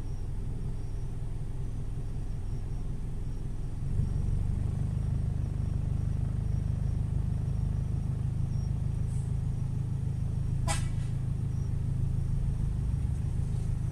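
Low, steady car rumble heard from inside the cabin as the car idles and creeps forward in stopped traffic; it grows a little louder about four seconds in. A single short click comes about three quarters of the way through.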